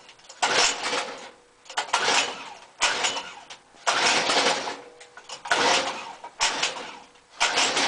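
Recoil-start pulls on a 5 hp Craftsman Briggs & Stratton lawn-tractor engine. There are several pulls, each a short burst that dies away as the engine fails to keep running. Near the end it catches and keeps running. It is a hard start after sitting, with a fuel bubble in the line.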